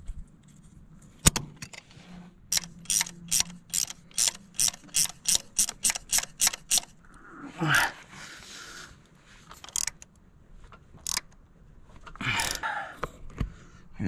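A wrench working a bolt on a steel hose clamp at a hydraulic hose fitting: one sharp clink about a second in, then a quick, regular run of about a dozen clicks, roughly three a second. Later come two bouts of rustling and scraping as he shifts his hands and tools.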